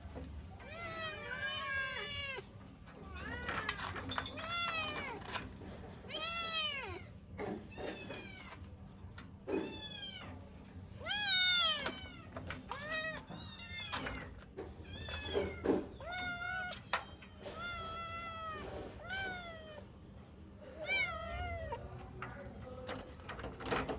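Several young kittens meowing over and over, with short high rising-and-falling cries that often overlap, crying for their mother. A few faint clicks come between the calls.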